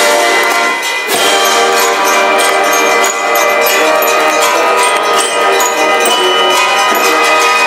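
Military brass band playing, with brass and drums and short high ringing notes sounding over the chords throughout.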